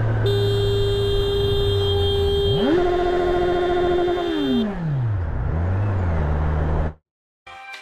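Motorcycle engine running while a horn sounds and is held for about four seconds. Partway through, the engine revs up sharply, holds, then drops back. The sound cuts off abruptly near the end, and background music begins.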